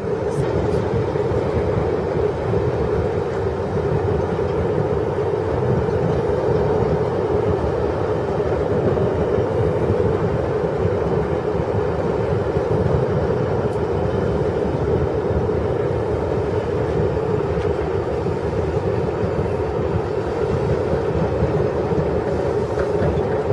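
A steam-hauled train of passenger coaches rolling slowly, with a steady rumble and hum that do not change.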